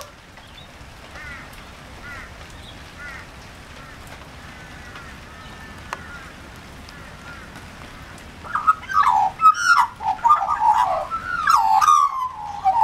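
Australian magpie calling: faint, scattered bird calls at first, then from about two thirds of the way in a loud burst of rich warbling, gliding notes that run on to the end.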